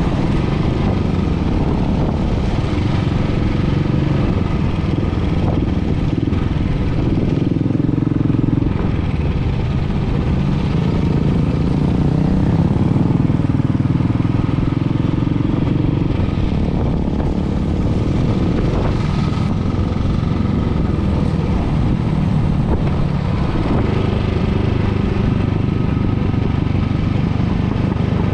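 Motorcycle engine running at a steady cruising pace, heard from on board the bike, with a continuous drone whose pitch shifts a little now and then with the throttle.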